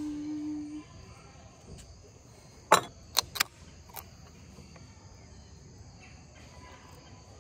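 A steady high trill of crickets and other insects, with a short low hum at the start and a quick run of three or four sharp clicks about three seconds in, the first the loudest.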